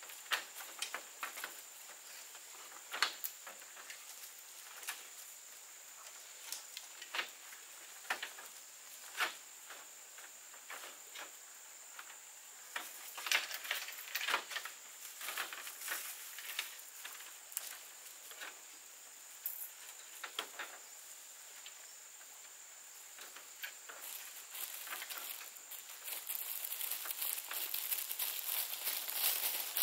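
Scattered light clicks and taps over a steady high whine, with rustling that thickens in the last few seconds.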